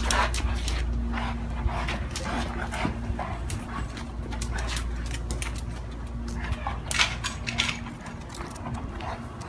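A St. Bernard walking on a leash over concrete, with many short scuffs and clicks from its steps and its prong collar.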